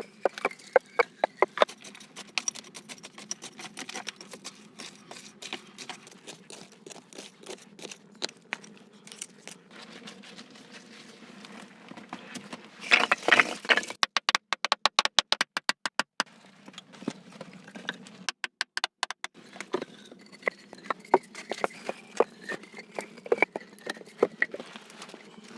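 Irregular sharp knocks and clicks of hands-on work, with a louder scraping rush about thirteen seconds in and a run of quick clicks just after it.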